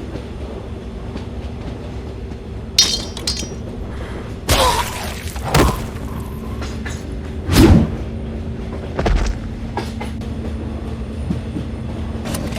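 A steady low rumble and hum with about five sudden crashes and bangs spread through it, the loudest a heavy thump a little past halfway.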